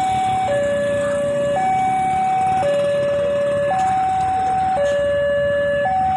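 Two-tone electronic warning siren, alternating evenly between a higher and a lower tone about once a second, with a low rumble underneath.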